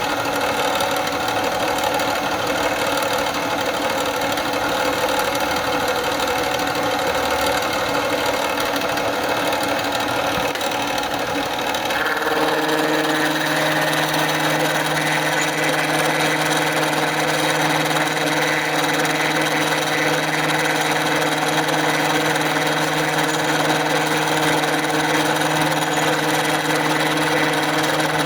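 Metalworking machine tool running steadily while machining. About twelve seconds in, its sound changes and a steady low hum with a higher whine takes over.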